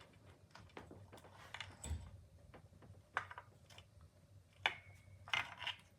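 Faint, scattered clicks and taps from handling small tools and wires during desoldering work, with a brief thin tone about five seconds in.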